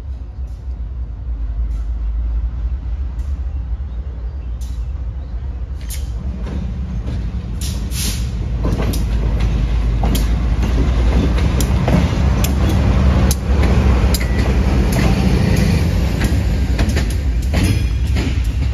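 GE B40-8 diesel locomotive running past, its 16-cylinder engine's low rumble growing louder as it nears. From about a third of the way in, the wheels click sharply and repeatedly over the rails as it goes by close at hand.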